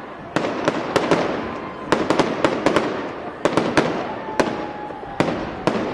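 Aerial fireworks bursting overhead: clusters of sharp bangs about once a second, several in quick succession each time, with a steady crackle and rumble between them.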